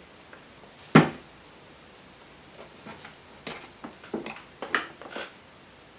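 Handling sounds on a worktable: one sharp knock about a second in, then a scatter of light clicks and taps as the resin statue and sculpting tools are handled.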